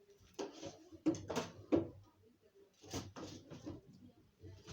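Handling noise from putting slime into a plastic container: a few clusters of short knocks and rustles.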